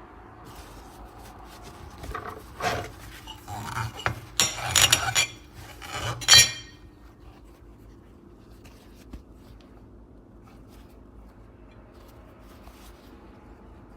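Hard kitchen-appliance parts clattering and scraping together in several bursts over a few seconds, the loudest a sharp knock near the end of the cluster, over a steady low hum.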